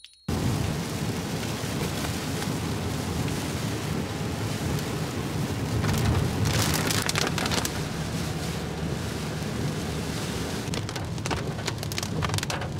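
Rain falling on a car's roof and windshield, heard from inside the moving car, over a steady low rumble of tyres on the wet road. Sharper patters of drops come through about six seconds in and again near the end.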